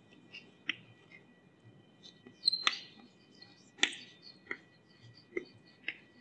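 Chalk tapping and scraping on a blackboard as a word is written: a string of short sharp ticks and taps, with a quick cluster about two and a half seconds in.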